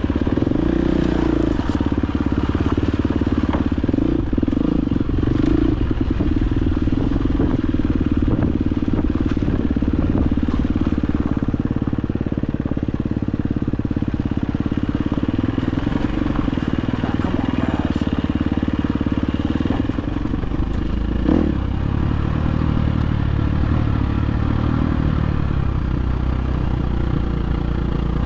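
Dirt bike engine running under way on a trail, its pitch rising and falling with the throttle, with scattered small knocks and clatter.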